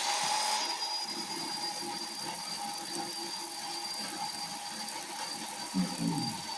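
Electric chainsaw running steadily with a constant whine as it trims high spots off a cedar log, with a short low knock near the end.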